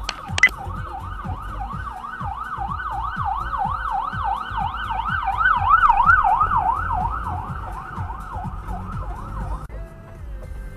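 Ambulance siren in a fast yelp, its pitch sweeping up and down about three to four times a second. It grows louder as the ambulance passes close by, then fades, and cuts off suddenly near the end. A low car rumble runs underneath, with two sharp clicks about half a second in.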